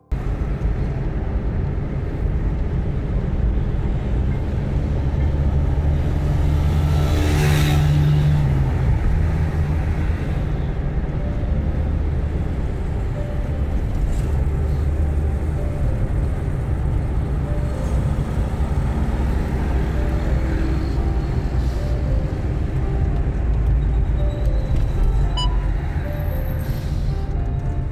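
Car driving on a highway: a steady low rumble of engine and road noise, with a brief rush of noise about seven seconds in. Soft background music plays underneath.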